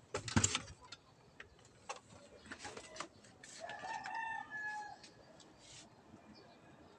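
A rooster crowing once, a held call of about a second that begins about three and a half seconds in. A short burst of clattering knocks near the start is the loudest sound, with a few lighter knocks a couple of seconds later.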